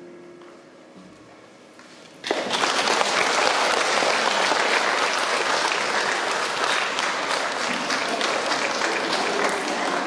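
The last sung notes die away faintly. About two seconds in, audience applause breaks out suddenly and carries on steadily.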